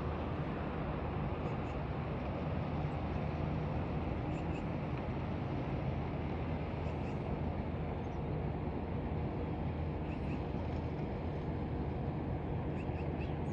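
Steady low rumble of traffic, with a faint engine hum running under it.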